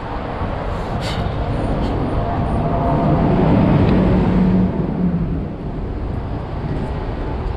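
Vehicle engine and road noise, a steady rumble that swells between about two and four and a half seconds in, then eases back.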